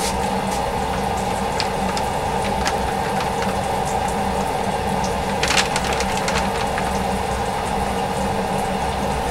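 Steady machine hum, with scattered small crackles and clicks as a hand pats and smooths a sticky white mass spread on brown paper; a louder cluster of crackles comes about halfway through.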